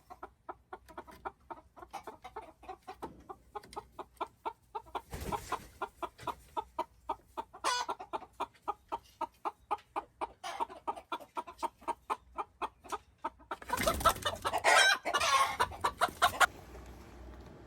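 A chicken clucking in a quick, steady run of short calls, about four a second. Near the end comes a louder, rougher burst of calling for a couple of seconds, which stops abruptly.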